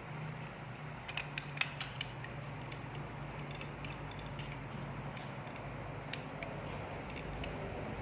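Small clicks and rattles from a soldering iron handle and its plug being handled and fitted to the station, several in quick succession about a second in and one more near six seconds, over a steady low hum.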